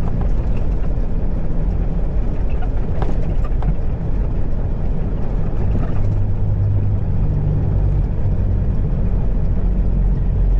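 Diesel engine of a Peterbilt 379 semi tractor running steadily under a heavy oversize load, with road and wind noise. The engine note strengthens a little about halfway through.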